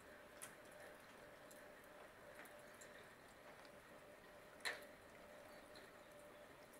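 Near silence: faint steady background hum with scattered light ticks, and one sharp click about two-thirds of the way in.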